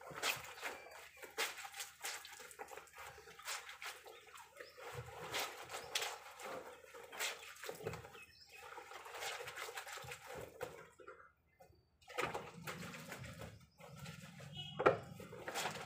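A wet blanket being lifted and pushed back into a plastic drum of water by hand, with repeated irregular splashes and sloshes, pausing for about a second after roughly eleven seconds.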